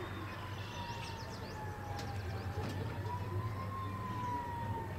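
A distant siren wailing slowly, its pitch falling, rising and falling again, over a steady low hum, with a few short bird chirps about a second in.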